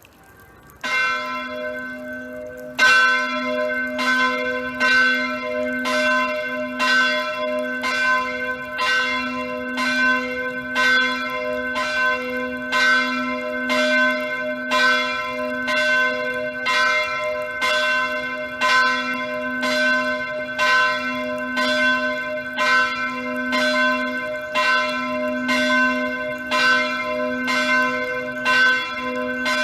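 Church bells of Kirche Letten ringing the 11 o'clock peal. One stroke comes about a second in, then regular strokes about once a second from about three seconds in, over a steady low hum.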